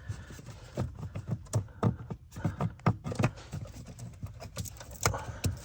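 Irregular light clicks and taps of plastic interior trim being handled as a small plastic cap over a trim clip is twisted off.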